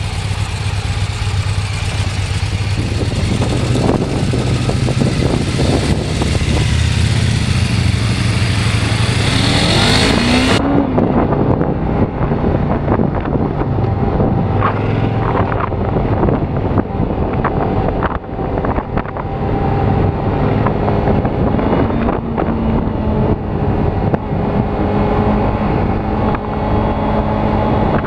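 Suzuki GW250 parallel-twin motorcycle engine running under way, heard from a helmet camera along with heavy wind noise, the engine revving up just before ten seconds in. About ten and a half seconds in the sound turns suddenly duller, as at a cut, and the engine then runs on steadily.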